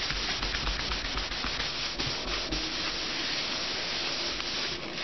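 Tissue rubbed over a sheet of baby-oil-soaked printer paper, a steady scrubbing rustle as the oily residue is mopped off.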